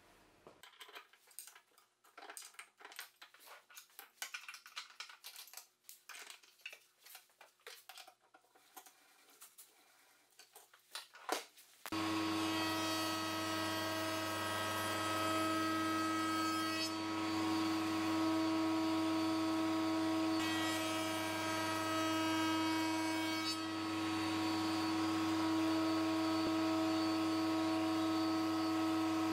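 Faint clicks and light knocks of MDF pieces being handled, then, about twelve seconds in, a router mounted in a router table running steadily with a high whine over a low hum, the hiss rising and falling a few times as an MDF frame is worked against the bit.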